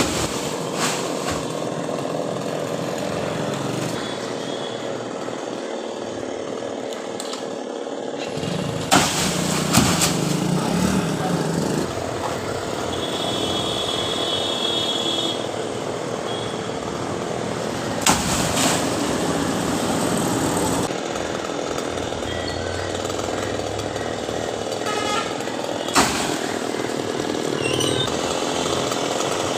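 Chainsaw running while cutting a coconut palm, its sound shifting abruptly several times, with three sharp knocks spaced several seconds apart.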